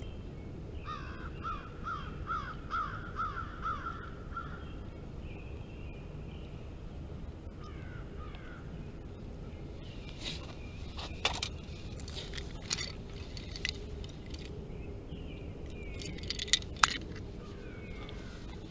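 A bird calling a quick run of about ten repeated notes over three or four seconds. Later come scattered sharp clicks and taps, the loudest near the end.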